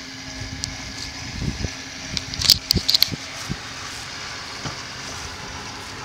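Ford pickup's engine idling steadily. About one to three and a half seconds in, a run of low thumps and sharp clicks stands out above it.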